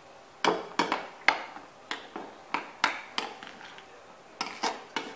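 Metal spoon clinking against a glass mixing bowl while stirring raisins in melted butter: sharp, irregular clinks about twice a second.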